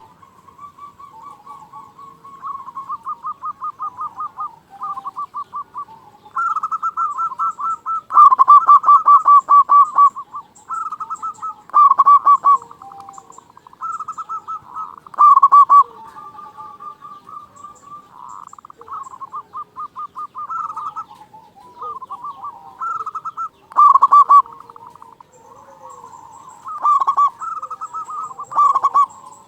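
Zebra doves (perkutut) singing: repeated rolling, trilled coo phrases at much the same pitch, several birds' songs overlapping, with the loudest phrases coming every few seconds. Faint high chirps from other small birds run underneath.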